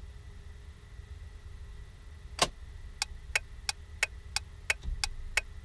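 One sharp click about two and a half seconds in, then steady clock-like ticking about three times a second over a faint low hum, the ticking beat that opens a song.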